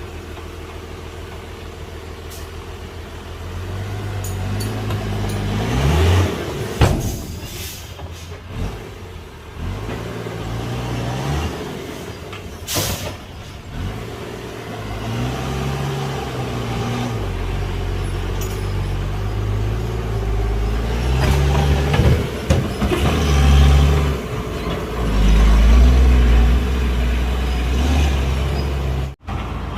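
Heavy diesel engines of a bulldozer and dump trucks working, their note rising and falling as they are throttled up and down under load. About 13 seconds in there is a brief burst of air hiss from a truck's air brakes.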